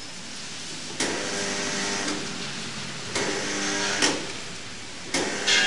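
1996 Baykal spot welding machine buzzing in three abrupt bursts of about a second each, about a second, three seconds and five seconds in, as current passes through angle iron clamped between its electrodes. Each burst is a harsh, humming buzz with a hiss, starting and stopping sharply.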